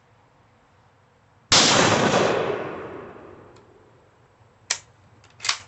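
A single 12-gauge shotgun shot about a second and a half in, its report ringing away over about two seconds, followed by two short sharp clicks near the end.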